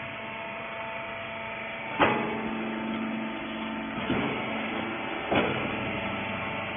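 Steady machine hum from the rag baler, broken by three sharp clunks, the first about two seconds in and two more a couple of seconds apart.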